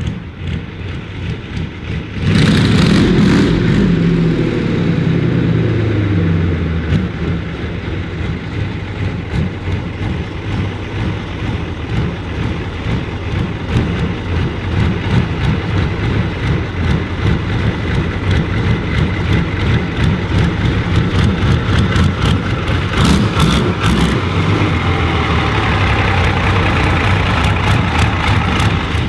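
Big engine swapped into a vintage tractor, running through open exhaust pipes: revved hard about two seconds in, the revs falling away over the next few seconds, then running with an even pulsing beat and blipped again near the end.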